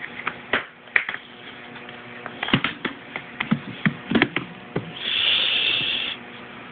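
Latches and lid of a hard plastic Pelican-style case being unlatched and opened: a series of sharp clicks and knocks, then about a second of scraping hiss near the end.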